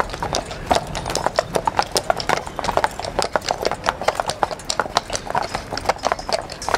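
Hooves of Belgian draft horses clip-clopping in a quick, irregular run of several strikes a second.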